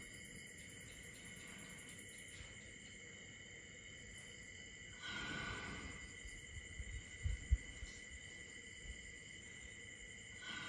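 Sleeping Asian elephant breathing slowly, two long breaths through the trunk about five seconds apart, over a steady chirring of night insects. A few short low thumps come a little past the middle.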